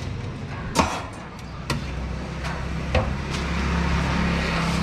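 Busy street-stall ambience: a few sharp knocks and clinks, the loudest about a second in, over the low rumble of road traffic that grows louder in the second half.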